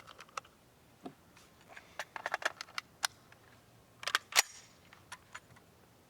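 Metallic clicks and clacks of an SKS rifle's action being worked and handled, with a quick run of clicks about two seconds in and a sharp, louder clack of the bolt going home about four and a half seconds in.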